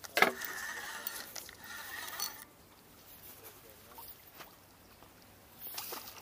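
Spinning reel on a feeder rod buzzing for about two seconds as a hooked bream is played, starting with a sharp knock. Near the end there is a short splash as the landing net goes into the water by the fish.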